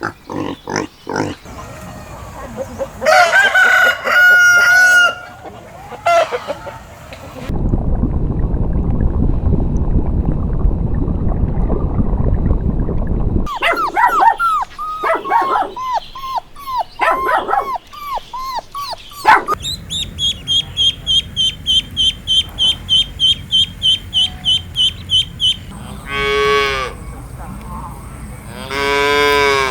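A run of farm animal calls: a rooster crowing about three seconds in, then a long low rumbling noise, a string of clucking calls, a fast even series of high chirps about three a second, and two drawn-out pitched calls near the end.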